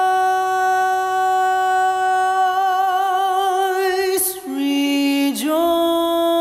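A woman's voice singing long, wordless held notes: one note sustained for about four seconds, a breath, a short lower note, then a scoop back up to the first note with a slight vibrato.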